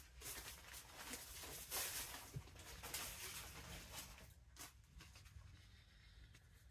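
Faint rustling of plastic packaging and clothing being handled, busiest in the first four and a half seconds and then dying down.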